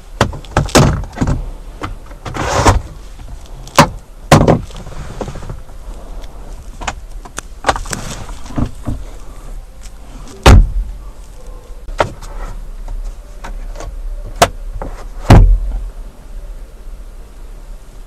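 Jaguar car's interior fittings being handled: a run of sharp plastic clicks and knocks from controls and storage lids being worked, with two heavier, deeper thumps, one about halfway through and one later, like a lid being shut.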